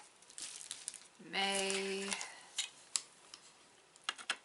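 Clicks and light rattles of a ring light's telescoping tripod stand being handled and extended, with a short hummed "mm" from a woman about a second in.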